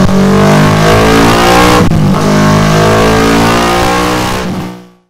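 Kawasaki Versys 650's parallel-twin engine running at high revs through a Delkevic full exhaust system, loud and raspy, with a brief dip about two seconds in. It fades out just before the end.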